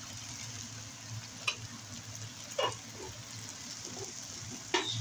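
Spaghetti and vegetables sizzling steadily in a steel pan on the flame while a plastic spatula stirs them, with three short scrapes of the spatula against the pan.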